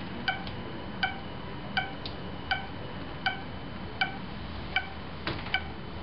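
Short electronic beeps from an OLPC XO laptop's audible ping, one beep per reply from the internet, about every three-quarters of a second. The beeps stop about five seconds in, a sign that the mesh link to the internet has been cut and the pings no longer get through; two short clicks follow.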